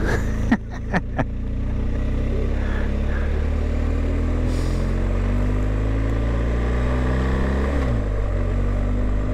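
BMW R1250GS boxer-twin engine under acceleration, its pitch climbing steadily for several seconds, then dropping sharply near the end. A few sharp clicks sound in the first second or so.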